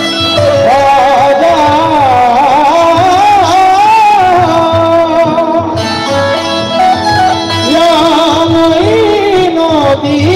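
Qawwali ensemble music: an ornamented, sliding melody line over a held harmonium drone and a steady hand-drum beat.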